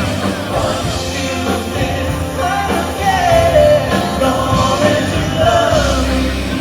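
Loud rock-style music with a singer.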